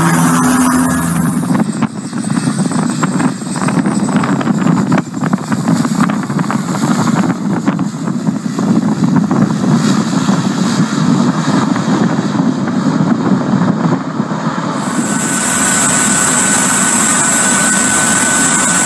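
A helicopter's rotor and turbine running briefly. Then a twin-engine propeller plane on a runway, with gusty wind buffeting the microphone. Near the end comes a steady aircraft cockpit drone with a high whine.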